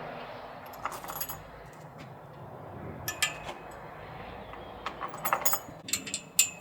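Small hard objects, metal or glass, being handled: a few light clinks about a second in and around three seconds, then a quicker cluster of clinks near the end, over a steady background hiss.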